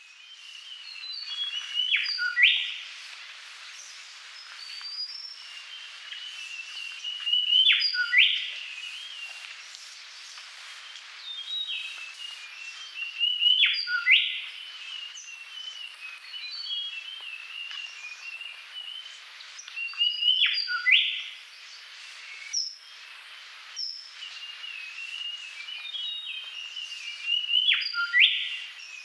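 Birds singing and chirping without pause, with a louder sweeping phrase repeating about every six seconds.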